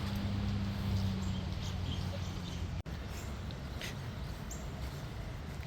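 A few short, high bird chirps over steady outdoor background noise, with a low steady hum in the first half that stops abruptly about three seconds in.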